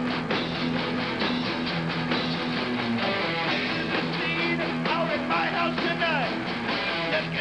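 Heavy metal band jamming live: distorted electric guitars playing a chugging riff over a steady drum beat, with a lead guitar bending notes downward around five to six seconds in.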